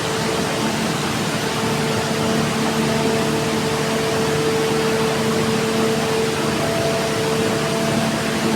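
A machine running steadily: a constant loud hiss with a steady hum underneath.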